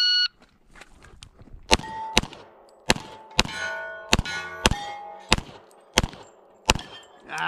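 A shot timer beeps once, then a pistol fires a string of about nine shots at steel targets, roughly one every half to three-quarters of a second, with hit plates ringing with a clang after many of the shots.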